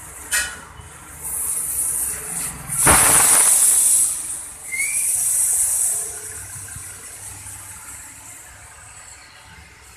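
Air hissing out of a car tyre through its valve as the tyre is let down, with a louder rush about three seconds in. The hiss dies away after about six seconds.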